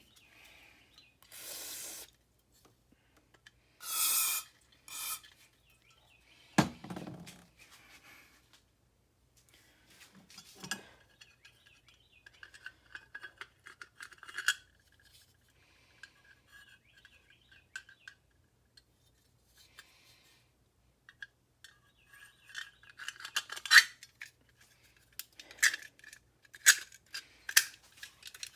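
Scattered clinks, clicks and short scrapes of small hard parts and tools being handled during work on a leaf blower, with a dull thump about six and a half seconds in and a run of quick, sharp clicks near the end.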